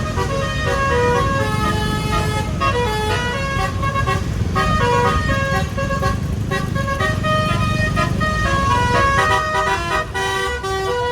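Basuri 'telolet' multi-tone bus horn playing a melody of held notes that change pitch in steps, over the low rumble of engine and road.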